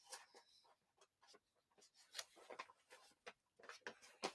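Near silence, with faint paper rustles and small ticks as a hardcover picture book is handled, and a page being turned near the end.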